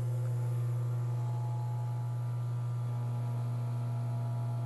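Miele vacuum sealing drawer's pump running with a steady low hum as it draws the air out of the chamber and bag. A second faint tone joins about three seconds in.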